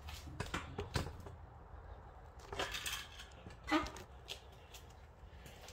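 Handling noise: scattered light clicks and rustles, with a short rustle about two and a half seconds in and a few ticks near the end, over a faint steady low hum.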